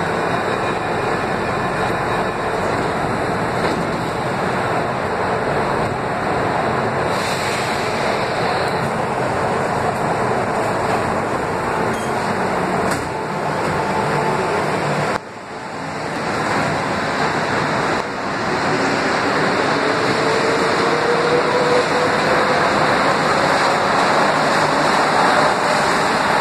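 CAF NE-92 metro train in an underground station. The standing train gives a steady rumble with a short hiss about a quarter of the way in. In the second half the train pulls out, its traction motors whining in a tone that rises steadily in pitch as it gathers speed.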